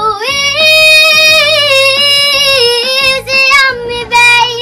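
A young girl singing a slow ballad solo, holding long notes that waver slightly in pitch.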